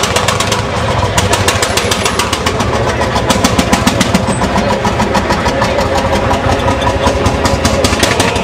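Engine of a vintage Landini tractor running with a rapid, even chugging beat as the tractor drives off.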